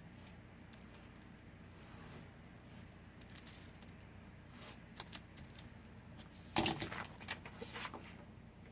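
Quiet paper handling: faint small clicks and taps, then a brief, louder rustle of paper being moved and pressed into place about two-thirds of the way through.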